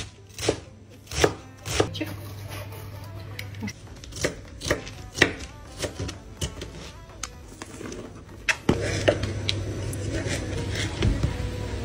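Kitchen knife chopping Napa cabbage on a cutting board, the blade knocking the board about twice a second, then in scattered single cuts. About nine seconds in a steady low hum starts under the further cuts as tomato is sliced.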